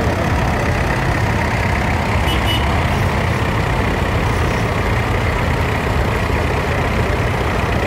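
Vintage farm tractors driving slowly past one after another, their engines running steadily at low revs.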